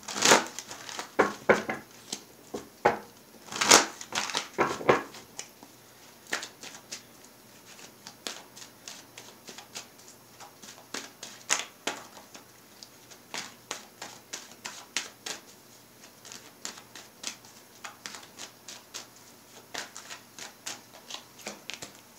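Tarot cards being shuffled by hand: a run of quick, light card clicks and flicks, louder and busier in the first few seconds, then softer and steady.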